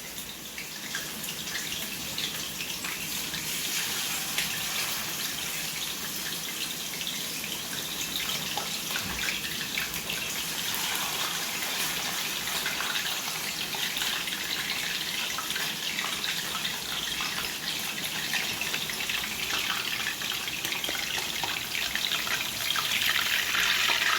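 Seasoned chicken sizzling as it sears in a hot pan: a steady hiss with fine crackling, growing louder near the end.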